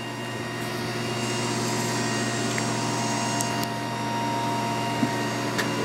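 Hydraulic pump unit of a Chevalier CGP-816 CNC cylindrical grinder running: a steady, fairly quiet machine hum with held tones, growing a little louder in the first second or two. A couple of light clicks come near the end.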